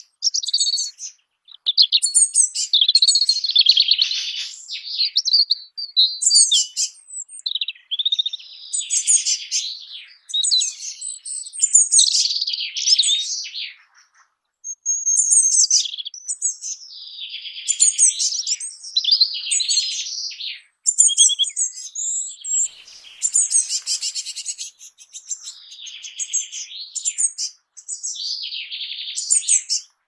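A songbird singing: high warbling, twittering phrases a second or two long, separated by short pauses.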